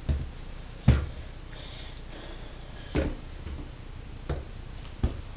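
About five dull knocks and bumps from handling, the loudest about a second in, as the handheld camera and the popsicle-stick model house are moved around.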